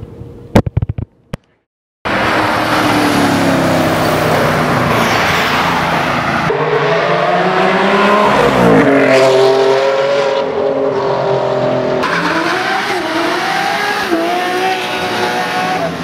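A few sharp clicks, a short silence, then car engines revving with tyre squeal and skidding, in a few sections that change abruptly from one to the next.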